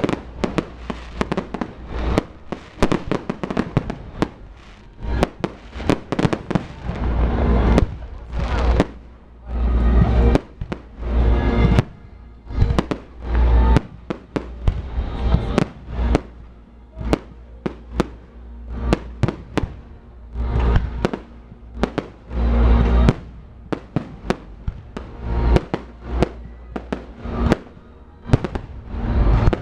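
Fireworks going off in a continuous, irregular barrage of sharp bangs and crackles, with heavier deep booms every few seconds, over music.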